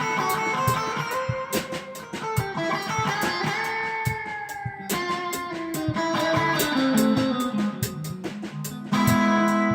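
Music: guitar over a drum kit with frequent cymbal and drum hits, growing louder and fuller with held chords about nine seconds in.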